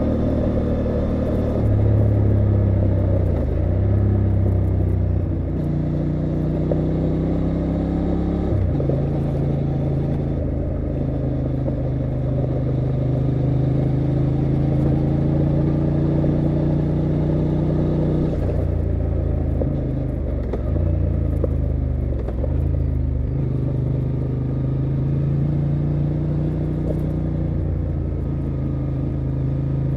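Honda XL750 Transalp's 755 cc parallel-twin engine running under way as the bike slows on gravel. Its pitch holds steady for stretches and drops or dips several times, with a sharp change about nine seconds in, over a steady hiss of tyres rolling on gravel.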